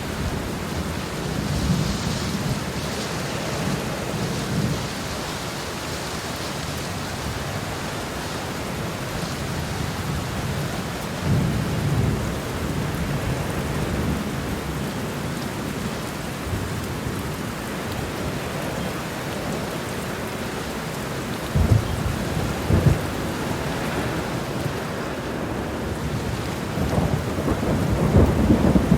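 Heavy rain pouring steadily, with low thunder rumbling at intervals: short rolls about 2 and 11 seconds in, two sharper low claps a little past the two-thirds mark, and a longer rumble building near the end.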